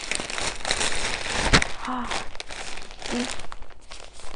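Plastic packaging bag crinkling and rustling as it is handled, with one sharp crackle about one and a half seconds in.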